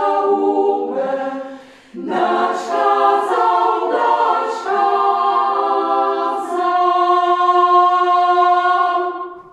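Women's choir singing a Polish folk song a cappella in several-part harmony. There is a short breath pause about two seconds in, then the closing chord is held for a few seconds and released just before the end.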